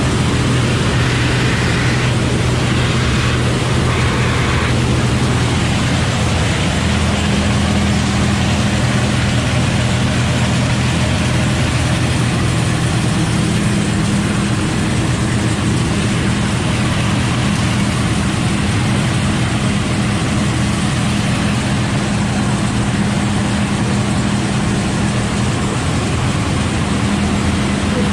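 John Deere combine running steadily, a deep engine and machinery hum that steps up in pitch about seven seconds in.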